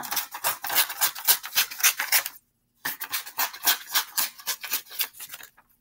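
Scissors cutting a sheet of paper into strips: a quick run of crisp snips with paper rustle, broken by a short pause about halfway through.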